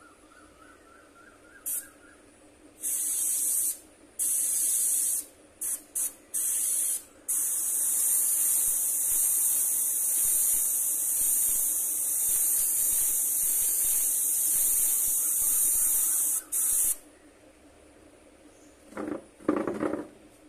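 Airbrush spraying paint: compressed air hissing in several short bursts, then one long steady spray of about ten seconds that cuts off suddenly. Two short, louder sounds come near the end.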